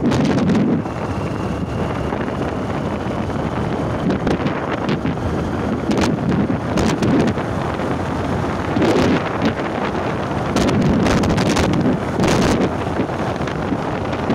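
Loud wind buffeting the microphone of a phone filming from a moving vehicle, coming in uneven gusts over a steady road rumble.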